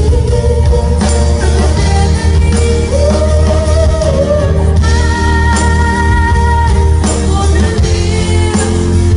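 Live amplified pop music with a woman singing into a microphone over a band with a heavy, steady bass. She holds long notes through the middle.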